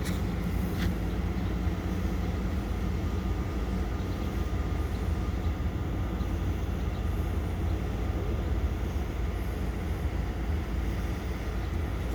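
EMD GP-series diesel switcher locomotive running, a steady low rumble without its horn.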